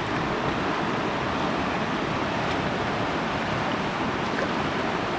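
Steady sound of a shallow river running over a gravel riffle.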